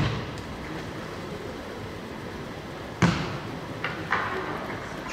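City street ambience: a steady background hum with a thud at the start, a sharp bang about three seconds in, and two lighter knocks just after.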